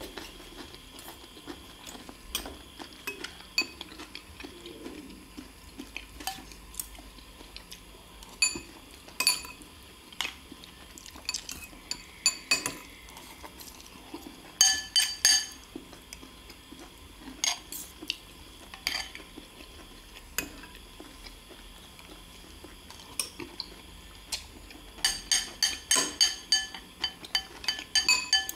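Metal spoons and forks clinking and scraping against porcelain bowls while eating, in scattered single taps with quick runs of clinks about halfway through and again near the end.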